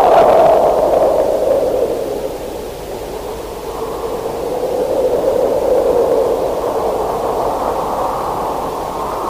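Muddy rehearsal-tape recording of a black metal band, heard as a dense wall of muffled mid-range noise with no clear beat. It dips in loudness about two seconds in and swells back up after about four seconds.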